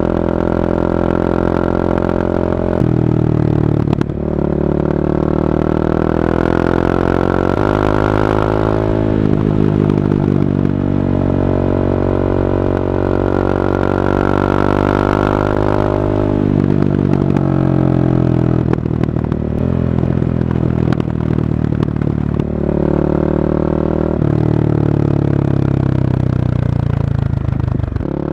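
Honda CB300R's single-cylinder engine running through an Akrapovic carbon exhaust while the bike is ridden. The engine holds steady revs for stretches of a few seconds, and its pitch shifts up or down every few seconds as the throttle and gears change.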